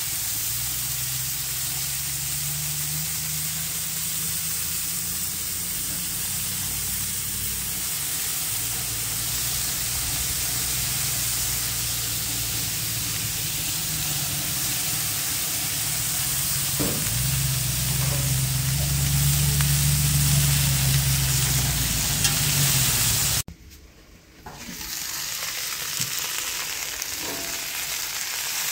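Chicken tenders and a cast-iron skillet of green beans and peppers sizzling steadily on a gas grill, with a low rumble underneath. The sound cuts out for about a second near the end, then the sizzling resumes.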